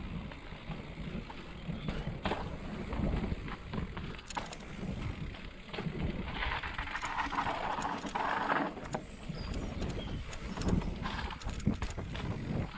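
Mountain bike rolling down a dirt and gravel trail: tyres crunching over the ground, with the bike rattling and sharp knocks over roots and stones. A louder rasping stretch from about six to nine seconds in, as the bike slows for a tight bend.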